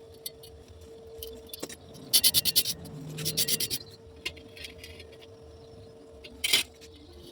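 Light metal taps and clinks: a quick run of about six strikes, a second short cluster, then one sharper knock near the end, over a faint steady hum.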